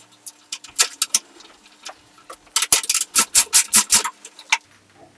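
Sharp metallic clicks of a hand tool tightening the bottom fitting of a WP AER 48 fork leg held in a vise: a few scattered clicks, then about halfway through a quick even run of about six clicks a second for a second and a half.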